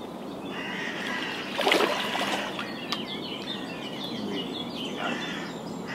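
A released carp splashing in shallow water as it kicks free, one rushing splash about two seconds in. Small birds chirp in the background.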